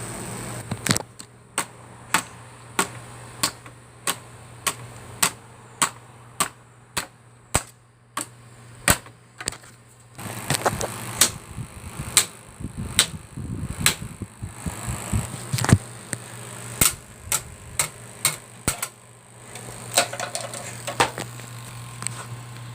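Repeated hard blows on an electric fan as it is smashed, about one and a half strikes a second at first, then more irregular hits with rattling in the second half.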